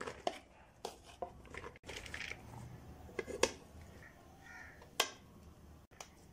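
Light knocks and clatter of plastic bowls and a serving plate as salad ingredients are tipped into a large plastic mixing bowl, with the food sliding and dropping in. Two sharper knocks stand out, about three and a half and five seconds in.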